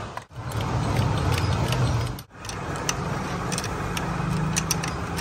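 Thin steel transformer laminations clicking and clinking as they are worked into a welding transformer's core, an irregular run of light ticks over a steady low hum. The sound breaks off briefly twice.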